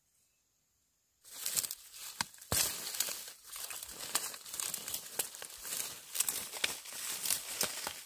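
Dry corn stalks and leaves crackling and rustling as they are handled and pulled, starting about a second in, with one sharper snap soon after.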